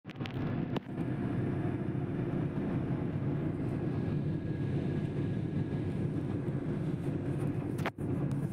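Shuttle bus driving, heard from inside its cabin: a steady low engine and road noise, which drops out for a moment near the end.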